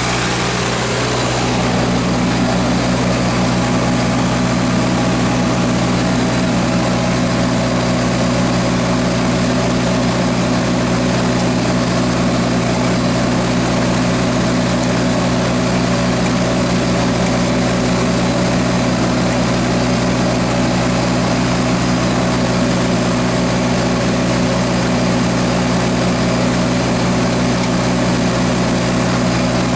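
Hercules engine of a 1954 Hobart 10 kW military generator running steadily at governed speed with an even, unchanging tone.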